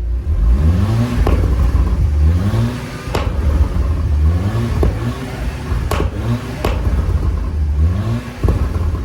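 Audi S3 8P's tuned 2.0-litre turbocharged four-cylinder revved in about five quick blips, each rise in pitch followed by sharp exhaust pops and bangs from its VFT pops-and-bangs map.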